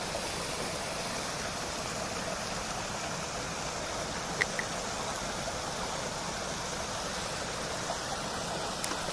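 Steady rush of flowing stream water, with two short clicks about four and a half seconds in.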